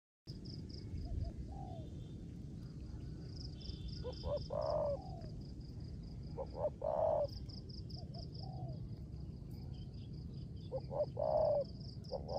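Spotted dove cooing, several phrases of a couple of short notes followed by a longer, lower note, about every two to three seconds. A fast, evenly repeated high-pitched chirping runs behind it, over a steady low noise.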